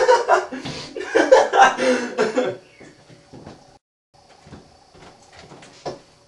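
Excited, unintelligible voices for about two and a half seconds, then, after a break, a few faint knocks and clicks.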